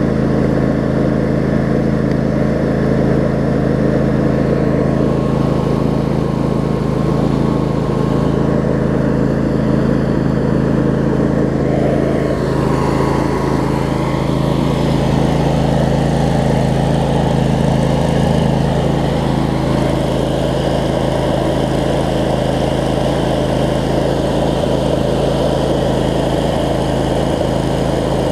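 25 hp Briggs & Stratton V-twin engine of a Craftsman DLT riding mower running steadily.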